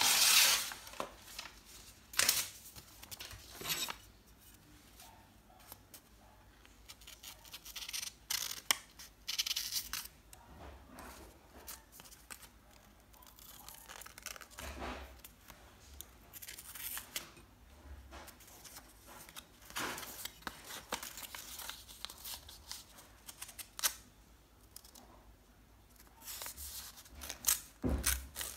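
Sheets of paper being sliced with the sharpened edge of a knife made from a motorbike brake disc: a series of short rasping cuts and tears with quiet gaps between, the loudest right at the start. A sharpness test of the blade.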